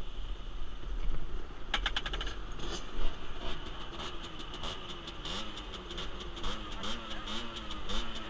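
Small 50cc motorcycle engine running at low speed while the bike rolls slowly, its revs rising and falling a little. A rapid ticking comes in about two seconds in, over a constant low wind rumble on the helmet microphone.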